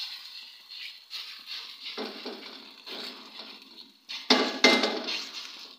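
Hands slapping and pressing a sheet of oiled mlawi (Moroccan layered flatbread) dough flat against a hot pan: a run of soft, irregular slaps and rubbing, the two loudest slaps about four seconds in.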